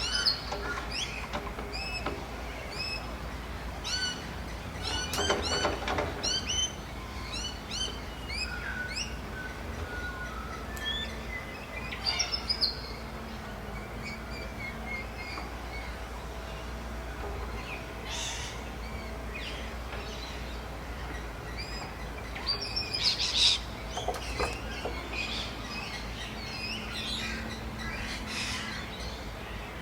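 Many birds chirping and calling together in a dawn chorus, with louder calls about five seconds in and again near the end, over a steady low rumble.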